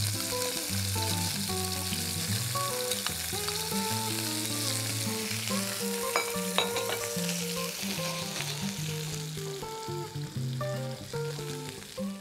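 Shrimp sautéing in hot oil in a nonstick pan: a steady sizzle that thins near the end, with a few sharp crackles about six to seven seconds in. Soft background music runs underneath.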